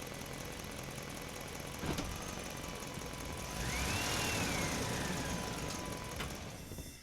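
Truck engine running with a steady low rumble. About two seconds in there is a sharp knock, and from about three and a half seconds a louder rushing swell carries a whine that rises and then falls. The sound dies away near the end.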